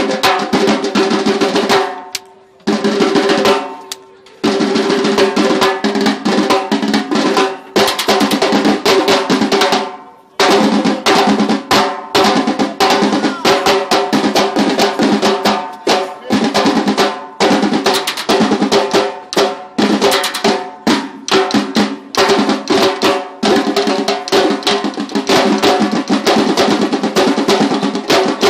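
Samba school bateria playing a samba beat on surdo bass drums, repiniques and snare drums, dense and loud. The whole section stops for a moment about two, four and ten seconds in, then comes straight back in.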